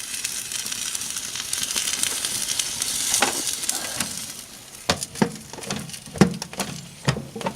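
Fire burning a plastic alarm clock inside a microwave oven: a steady hissing sizzle for about four seconds, then it thins out into separate sharp crackles and pops.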